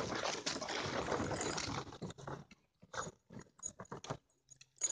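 Hollow plastic ball-pit balls clattering and rustling as a small dog pushes through them. A dense jostle for about the first two seconds, then scattered single clicks.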